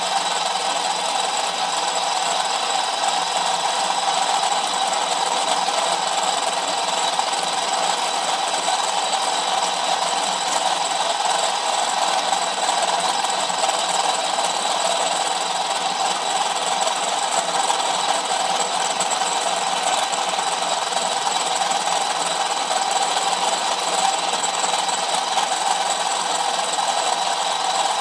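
A powered drill spindle turning a 25 mm 60-degree angle cutter held in a 13 mm drill chuck, cutting into the end face of SS400 mild steel with a steady, unbroken machining noise.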